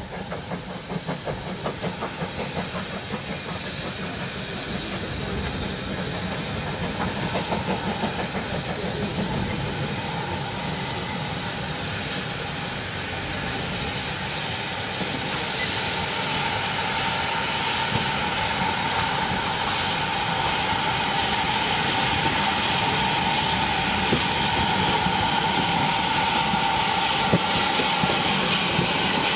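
Two steam tank locomotives double-heading a passenger train as it approaches and passes. Rhythmic exhaust beats grow louder at first, then give way to a steady steam hiss with a high, held tone. A few clicks of the wheels come near the end.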